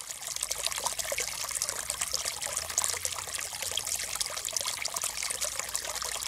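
Water running from a chrome bathroom tap into a sink basin: a steady, splashing stream.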